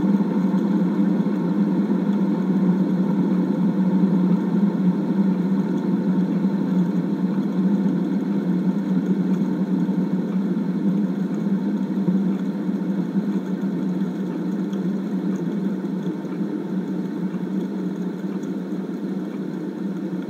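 Fidget spinners whirring on their bearings, a steady low hum that slowly fades as they spin down.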